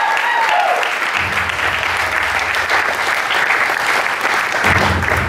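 Audience applauding, many hands clapping at once. The last held note of the music fades out in the first half second.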